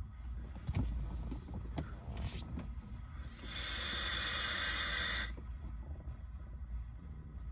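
A puff on a vape: a steady breathy hiss lasting about two seconds, after a few light clicks and knocks of handling.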